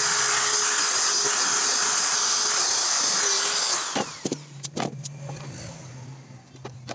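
Corded electric drill running at full speed, boring through a thin board, with a steady motor whine; about four seconds in it is switched off and winds down. A few knocks follow as the board is handled.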